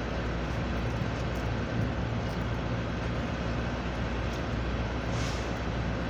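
Steady low mechanical hum with a broad even rush from running rooftop air-conditioning units, and a brief hiss about five seconds in.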